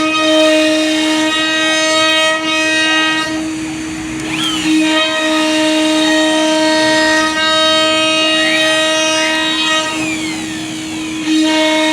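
CNC wood router running: a steady, loud spindle whine whose overtones drop away and return twice, with short rising and falling whines on top.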